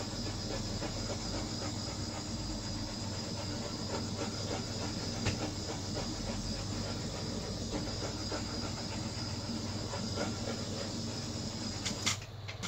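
Steady hiss of a handheld heat tool run over wet acrylic paint to pop its air bubbles; it cuts off about twelve seconds in.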